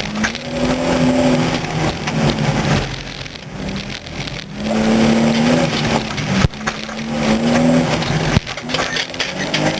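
Nissan Z33's 3.5-litre V6 revving up and dropping back three times as the car is driven hard through a gymkhana course, with two sharp knocks about two-thirds of the way through and near the end.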